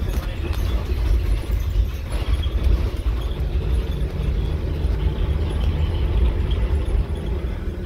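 Inside an ADL Enviro 300 single-decker bus on a Scania chassis under way: the engine and road noise make a steady low rumble.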